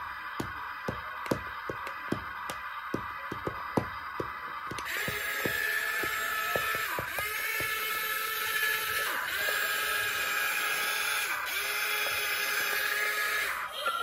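Small electric gear motors of a remote-control toy excavator whining as it works its arm and tracks, starting about five seconds in and running in four stretches of two to three seconds each, over background music.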